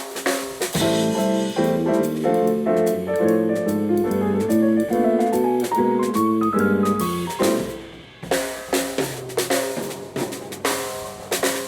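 Live band playing in rehearsal: drum kit at first, then held chords over a bass line with a melody that climbs and comes back down, and the drums come back in about eight seconds in.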